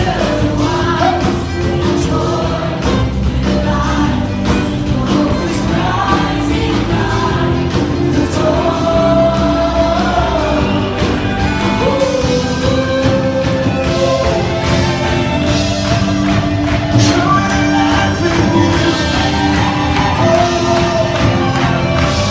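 A live worship band plays a contemporary worship song, with singers holding long melody notes over the full band.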